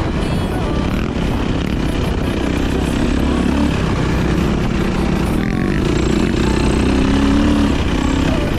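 450 cc four-stroke dirt bike engine running while riding off-road, its pitch rising and falling with the throttle, over a steady rush of noise.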